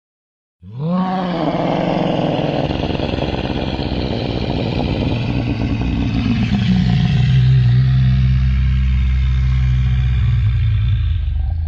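Pachyrhinosaurus dinosaur sound effect: a long, loud, deep rumbling growl. It opens about half a second in with a call that rises and falls in pitch, then drops lower and holds steady.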